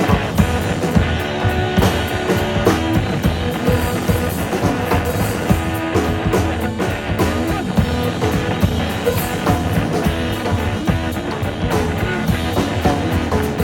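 Live band playing an instrumental passage without singing: guitar over drums.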